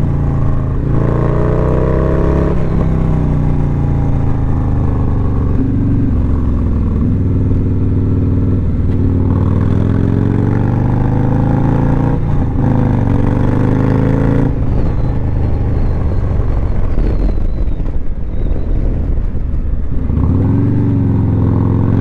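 Harley-Davidson Low Rider's V-twin engine, fitted with a stage 2 kit and cams, pulling hard on a twisty road. The revs climb and fall again and again as it shifts, over steady wind noise, heard from the rider's seat.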